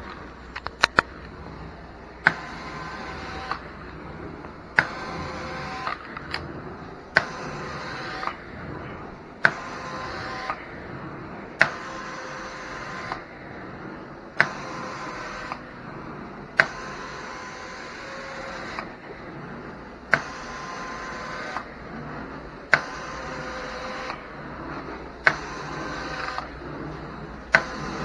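Carpet extraction wand worked in repeated strokes over a steady vacuum-motor drone: about every two and a half seconds a sharp click of the wand's spray valve opens a hiss of spray and suction lasting about a second, with a whistling tone in it.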